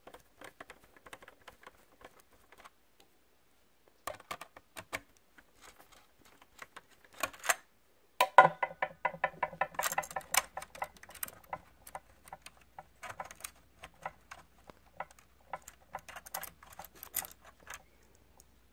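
Small clicks, taps and scrapes of a screwdriver and fingers on a laptop's plastic chassis while the wireless network card is unscrewed and pulled out, with a louder run of scraping clicks about eight seconds in.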